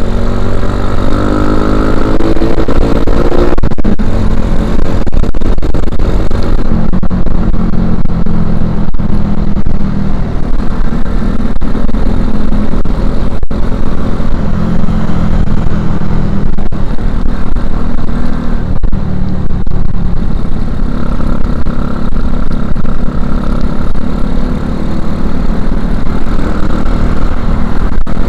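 Suzuki Shogun Axelo R 125's single-cylinder four-stroke engine on the move, exhausting through a stock Suzuki Satria FU 150 silencer. Its pitch climbs under acceleration for the first few seconds and breaks off at a gear change. It then runs at fairly steady revs, dipping briefly a few more times.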